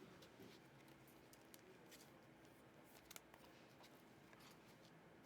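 Near silence: room tone with a few faint clicks, including a quick pair about three seconds in.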